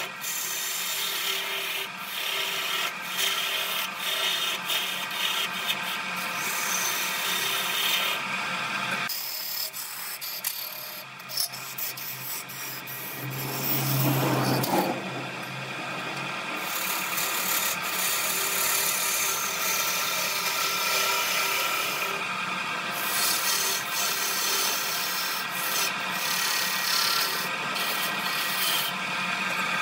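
A turning tool cutting a spinning wooden blank on a belt-driven wood lathe: a steady scraping hiss of shavings coming off the wood over the hum of the lathe's motor. The cut changes briefly about nine seconds in, and a louder low hum rises for a second or two around the middle.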